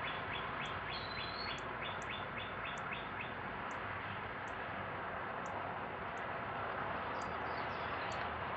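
Small birds chirping over a steady background hiss. A quick run of repeated chirps lasts for the first three seconds or so. A thin, high note repeats about once a second throughout.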